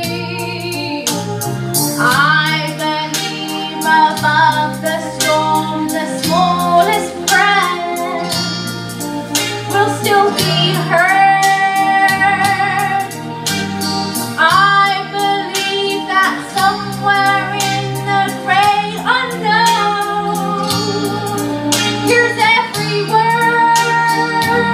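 A song: a solo voice singing a melody with vibrato over a backing track with bass notes and a steady beat.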